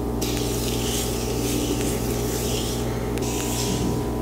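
Hands rubbing styling cream between the palms and working it through wet curly hair: soft rubbing and swishing in two stretches, over a steady low hum.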